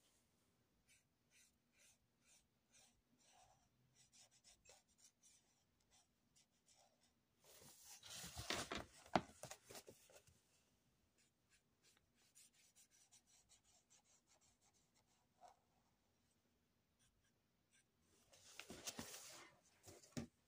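A felt-tip marker colouring on paper, faint. It makes short scratching strokes in quick runs. There are two louder, longer stretches of rubbing, one near the middle and one near the end.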